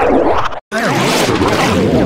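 Cartoon audio heavily warped by editing effects: dense layers of warbling, swooping pitch glides. It cuts out completely for an instant just past half a second in.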